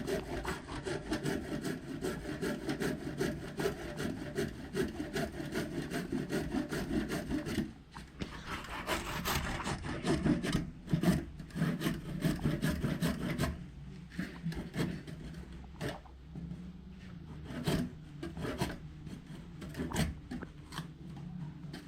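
Handsaw cutting through a wooden timber with rapid back-and-forth strokes, which break off about eight seconds in and then resume. In the last third the strokes give way to scattered separate knocks.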